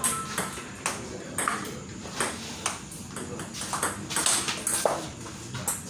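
Table tennis rally: the ball clicking sharply off the paddles and bouncing on the table, a tick about every half second.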